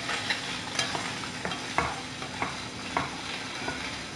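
Metal utensils clinking and scraping against a skillet and a stainless steel mixing bowl as cooked chicken is scraped out of the pan and stirred in, about two clinks a second, over a steady sizzling hiss from the hot food.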